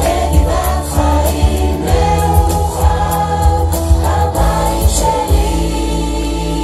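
Amplified Hebrew anthem song: a group of voices singing together over a heavy, regular beat. About five seconds in the beat stops under a held final chord.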